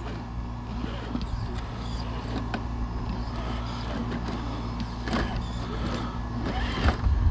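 Traxxas TRX-4 RC crawler's electric motor and geared drivetrain whining steadily as the truck crawls at the rubble, with a few sharp clicks of tyres and chassis on loose stones and heavier low bumps near the end.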